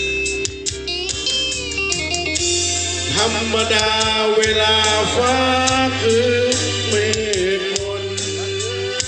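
A man singing karaoke into a microphone over a guitar backing track: the guitar plays alone at first, and his voice comes in about three seconds in.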